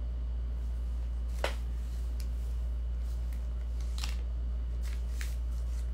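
Steady low background hum with about half a dozen faint, short clicks scattered through it, the sharpest about a second and a half in.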